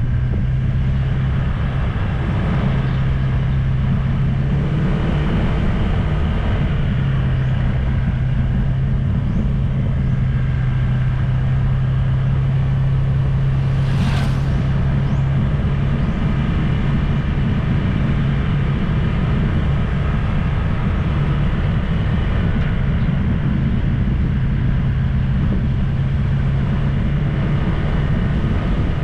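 A vehicle engine runs at a steady speed under dense road and wind noise, its low hum holding one pitch throughout. There is a brief sharp noise about halfway through.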